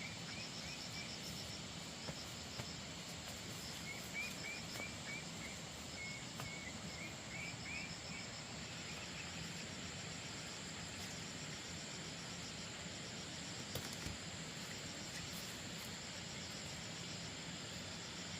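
Outdoor insect sounds over a steady background hiss: a fast, high pulsing trill at the start, then a run of short chirps about four to eight seconds in. A few faint knocks come through.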